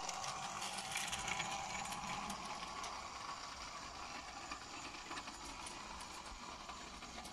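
G scale model Simplex locomotive's motor and gearing whirring as it runs along the track, with many small clicks from the wheels on the rails. It grows gradually fainter as the loco moves away.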